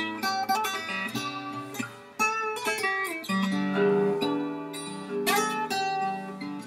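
Soulman K1 koa-wood acoustic guitar playing an instrumental piece: plucked notes and chords ring out and decay, with a new chord struck about two seconds in.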